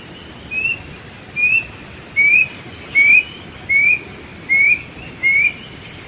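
A wild bird calling a series of seven short, upslurred whistles, about one a second, growing louder over the first four notes. A faint high insect trill runs underneath.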